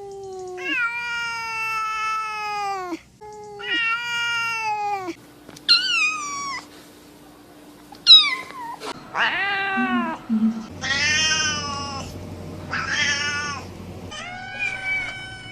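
Domestic cats meowing: a string of about eight separate meows, the first two long and drawn out, then shorter ones that start high and fall sharply. The background changes between them, as from different cats.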